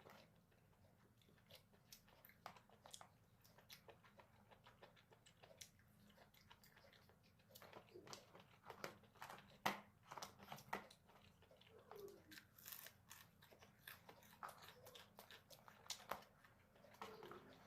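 A person chewing jjajangmyeon noodles with octopus and shrimp: quiet, scattered wet mouth clicks and small crunches, busiest about eight to eleven seconds in.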